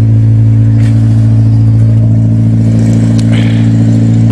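1994 Nissan Sentra's 1.6-litre four-cylinder engine idling steadily, cold and only just started, now running smoothly.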